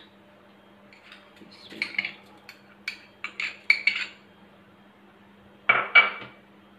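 A spoon scraping and clinking against a bowl as tomato paste is emptied into a pressure cooker. A run of small clinks and scrapes is followed by two louder knocks close together near the end.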